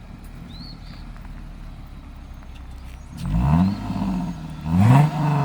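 Lexus GS350 F Sport's 3.5-litre V6 idling through a new exhaust with X-pipe, resonators and active mufflers, their valves closed, then revved twice: about three seconds in and again near the end, each rev rising and falling back.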